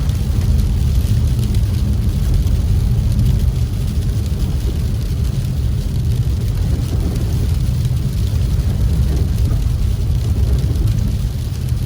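Steady low rumble of a car driving on a snow-covered road: tyre and engine noise.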